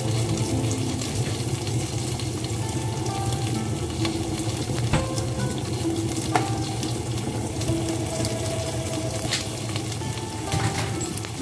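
Courgette, tomato and onion sizzling in a cooking pot, with a few sharp clinks.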